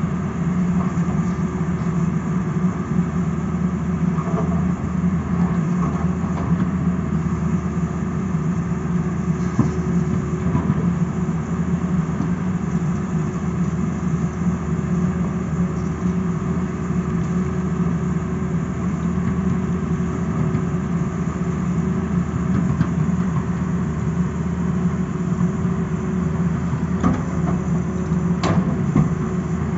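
Tata Hitachi crawler excavator's diesel engine running steadily as the machine digs, with a constant low hum. Two sharp knocks near the end.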